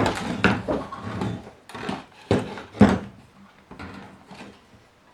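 A series of knocks and clatters of hard objects being handled, several sharp ones in the first three seconds, then fainter rattling.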